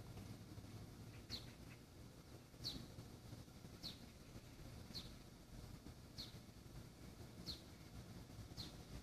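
A bird calling faintly: seven short high chirps, each falling slightly in pitch, about one every 1.3 seconds, over a low outdoor background hum.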